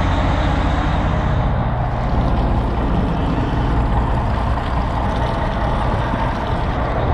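Detroit Diesel Series 60 inline-six marine diesel running steadily with its newly fitted raw water pump. Cooling water splashes from the hull-side outlet into the sea, the sign that the pump is moving raw water again.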